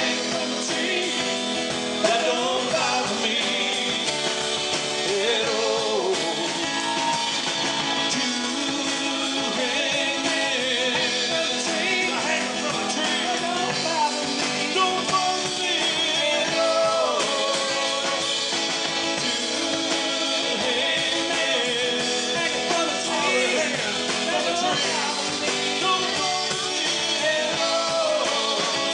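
Live rock band playing an instrumental stretch of the song: strummed acoustic guitar with electric guitar, bass and drums.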